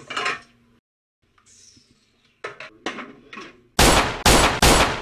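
Dishes and plastic tubs knocking and clattering in a stainless-steel sink during hand washing-up: a few light knocks, then three loud clatters in quick succession near the end.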